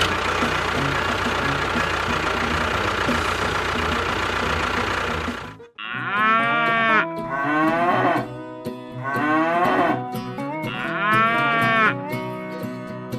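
A small engine runs steadily for about five seconds and then cuts off abruptly. A cow then moos four times, each moo about a second long and rising then falling in pitch.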